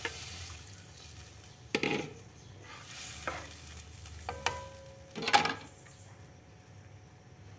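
A spatula stirring liquid in a non-stick pot and scraping against it, in four separate strokes, the loudest about five and a half seconds in, with a brief metallic ring in the middle. Soft sizzling from the pot at the start.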